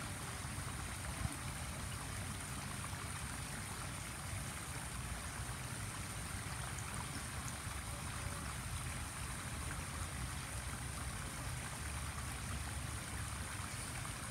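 Steady, faint low rushing background noise with no distinct events, apart from a single small tick about a second in.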